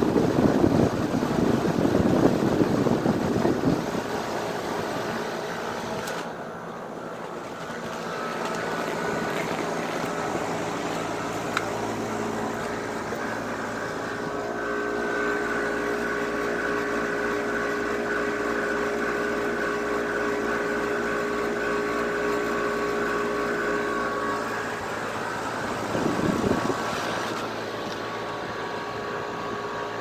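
Air conditioner condensing unit running: the rush of air from its spinning condenser fan, loudest in the first few seconds and again briefly near the end, over a steady hum.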